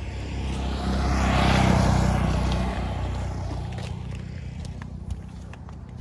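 Car driving on the road: a steady low engine and road drone, with a rush of noise that swells and fades about a second or two in.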